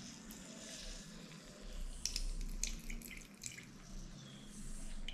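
Handheld citrus press squeezing a lime over a glass: juice drips and trickles into the glass. A run of small sharp clicks and squishes comes about two seconds in and lasts a second or so.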